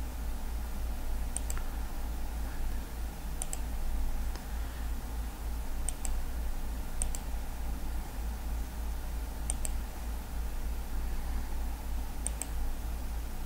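Computer mouse clicks, each a sharp press-and-release pair, about six times at irregular intervals of one to two seconds, over a steady low hum.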